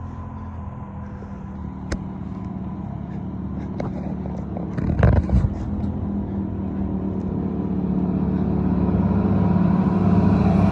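Motor vehicle engine running steadily, growing louder over the last few seconds as it approaches, with a couple of low thumps about halfway through.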